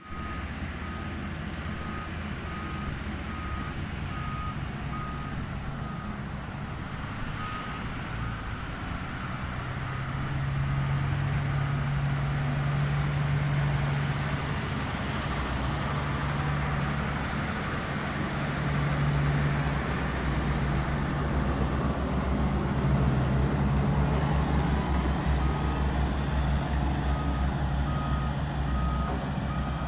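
Tandem asphalt roller running, its diesel engine droning and growing louder about a third of the way in, with its reversing alarm beeping steadily at the start and again near the end.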